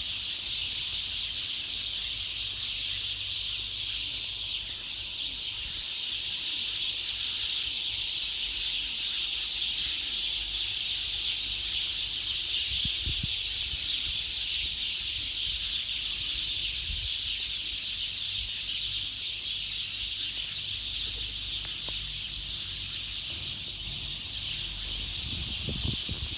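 A large flock of sparrows chirping together in a dense, continuous chorus of rapid, overlapping high chirps.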